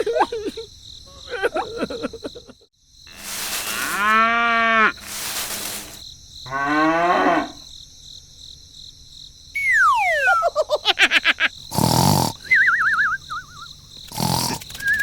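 A string of cartoon-style sound effects: a cow-like moo about four seconds in, a shorter rising call a few seconds later, then a long falling whistle about ten seconds in. Two sharp hits follow, each trailed by a warbling tone.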